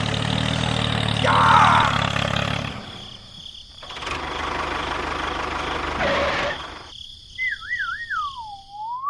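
An engine running for the first few seconds, then a steady rushing noise, and near the end a whistle that wobbles, slides down and rises again.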